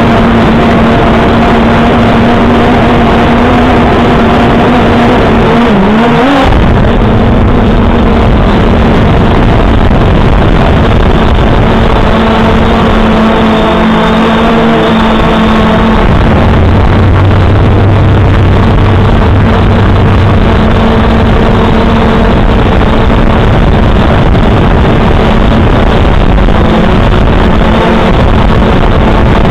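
Drone's electric motors and propellers humming loudly, as picked up by its onboard camera, over a steady rushing noise. The pitch dips and climbs back sharply about six seconds in, and a lower hum joins from about 16 to 20 seconds in as the motors change speed.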